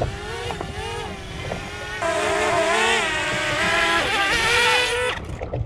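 Small folding DJI quadcopter's propellers whining as it hovers down to be caught by hand, the pitch wavering up and down and getting louder about two seconds in as it comes close. The whine cuts off suddenly near the end when the motors stop after the catch.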